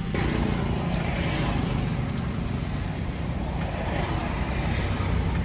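Steady road traffic noise: a low rumble of vehicle engines and tyres passing on the road.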